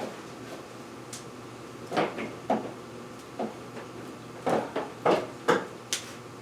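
A string of short knocks and clunks from objects being handled and set down, about eight in all, bunched about two seconds in and again near the end, over a faint steady hum.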